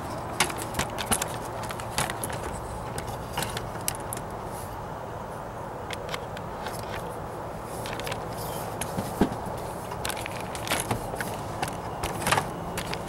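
Scattered light clicks and taps from handling, irregularly spaced, over a steady low background hum.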